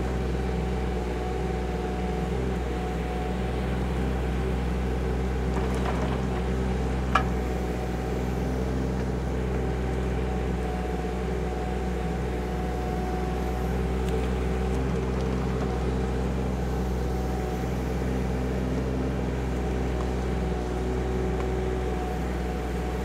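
KYMRON ZX22D mini excavator's diesel engine running steadily as the machine digs, with one short sharp click about seven seconds in.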